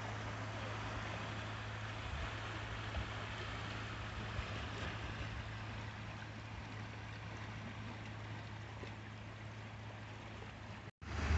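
Seawater washing and swirling around rocks in shallow water, a steady rushing wash with a constant low hum underneath. The sound cuts out for an instant near the end.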